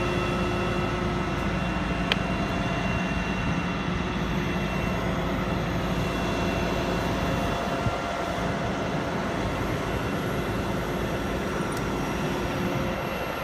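Heavy machinery engine running steadily, a constant drone with a few fixed tones and no change in speed; a single short click about two seconds in.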